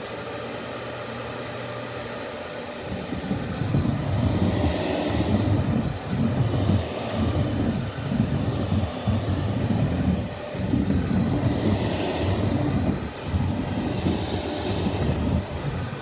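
Upright vacuum cleaner running: the motor comes on at the start and holds steady, then from about three seconds in an uneven low rumble rises and falls as the vacuum is pushed back and forth across the floor.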